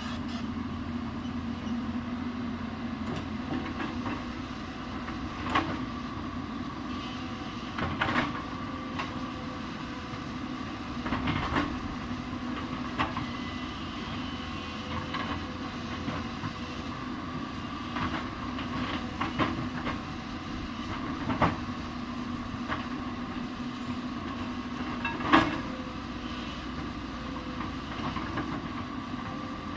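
Hyundai 220 hydraulic excavator's diesel engine running steadily under load, with irregular sharp metallic clanks and knocks every few seconds as it works; the loudest knock comes about 25 seconds in.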